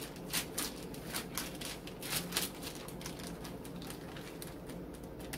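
Plastic zip-top bag being sealed and handled: quick, irregular clicks of the zipper track being pressed shut amid crinkling of the plastic.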